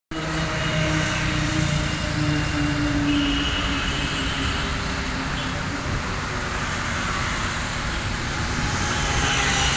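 Steady road traffic noise from a busy road, with cars and motorbikes running past.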